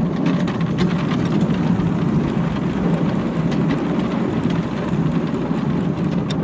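Battery-electric, chain-driven ride-on miniature locomotive running at a steady speed, wheels rumbling along steel bar-stock track laid on the ground, with a few faint ticks from the rail joints and running gear.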